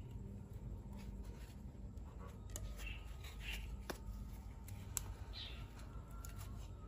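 Faint handling sounds as hands work chicken feathers into a metal bicycle-valve shuttlecock: light rustling and several small sharp clicks. Underneath is a steady low rumble, and a few short high chirps come in about halfway through.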